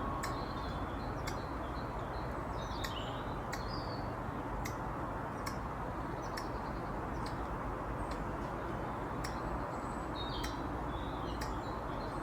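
Squirrel hiccuping: small sharp clicks repeating evenly, about one and a half a second, over a steady background hiss. A few short high chirps come in between, near the start, around three seconds in and again near the end.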